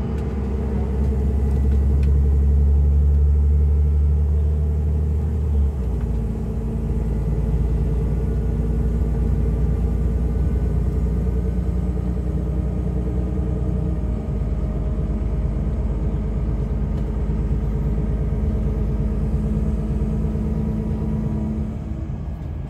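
Diesel engine of a 2014 Temsa Safari HD coach droning steadily, heard from inside the passenger cabin while it cruises, mixed with road noise. The low engine note changes abruptly about six seconds in.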